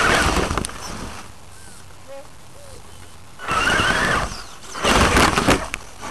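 Traxxas Summit RC truck's electric motor and drivetrain whining, the pitch rising and falling with the throttle. The whine drops away for about two seconds, returns, and near the end the tyres crunch and clatter loudly over dry leaves and rocks.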